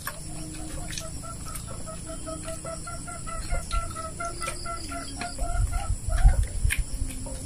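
A chicken clucking in a long, quick run of evenly spaced notes, about five a second. Near the end come a few low thumps and clicks.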